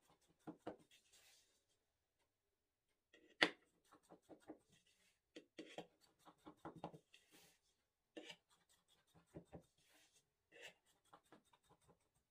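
Knife slicing through stacked layers of buttered yufka pastry in a metal tray: several bursts of short, crackling, scratchy strokes, with one sharper click about three and a half seconds in.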